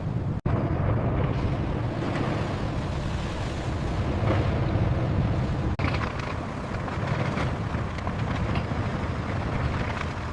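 Steady low rumbling noise with a hiss over it, broken by two brief dropouts, one about half a second in and one a little before six seconds.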